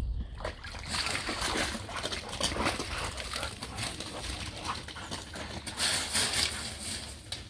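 A dog wading out of a shallow garden pond, water splashing and sloshing, then dogs scrambling about its grass and gravel edge. The splashing comes in noisy bursts, loudest about a second in and again near the end.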